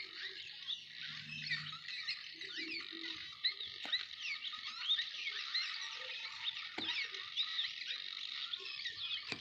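Many small birds chirping together: a dense, unbroken chorus of short, quick, high-pitched calls overlapping one another.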